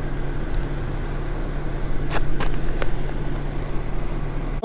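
Car engine idling with a steady low hum, with a few light clicks about two seconds in.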